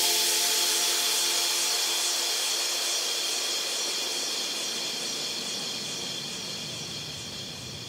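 Closing white-noise wash of a synthwave track: a steady hiss with no notes in it, fading away slowly, its high end dimming toward the end.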